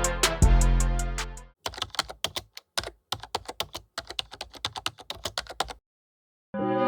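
Background music that cuts off about a second and a half in, followed by a quick, uneven run of keyboard-typing clicks lasting about four seconds; music starts again near the end.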